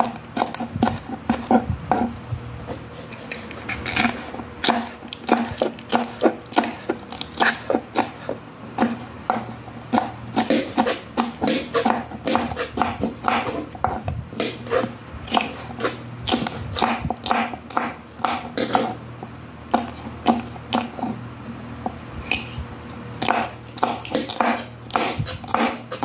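Kitchen knife slicing a green bell pepper on a wooden cutting board: quick, irregular knocks of the blade hitting the board, several a second, over a faint steady low hum.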